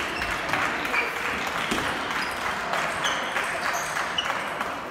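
Applause: a steady patter of clapping that fades near the end, with a few short, high squeaks over it.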